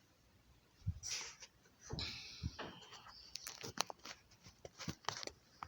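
Handling of bicycle rear-hub bearing parts: a string of small, irregular clicks and scrapes, with a scratchy rustle near the start.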